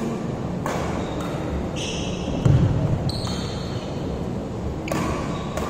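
Badminton doubles rally on a wooden court: racket strings hitting the shuttlecock roughly once a second, with short squeaks of shoes on the floor. A heavy thud about two and a half seconds in is the loudest sound.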